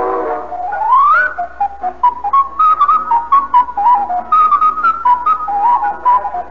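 Novelty music: a high, whistle-like tune that opens with a rising slide about a second in, then moves in short hopping notes over clicking percussion.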